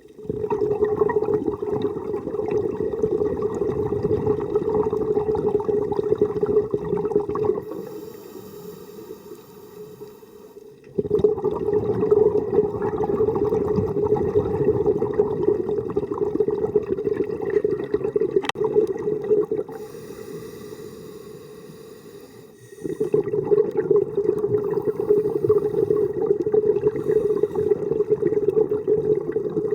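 A scuba diver breathing through a regulator, heard underwater. Three long exhalations bubble out of the regulator exhaust, and each is followed by a quieter inhalation with a faint hiss.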